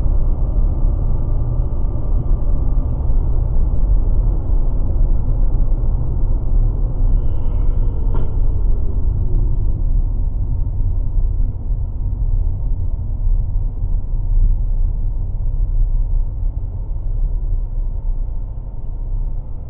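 Steady, muffled low rumble of a car's engine and tyres heard from a dashcam inside the cabin while driving, with a single sharp click about eight seconds in.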